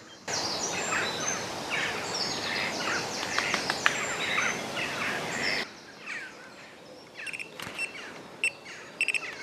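Dawn chorus of many songbirds singing at once in dense, overlapping chirps and trills. About five and a half seconds in it cuts abruptly to a quieter stretch with only scattered chirps.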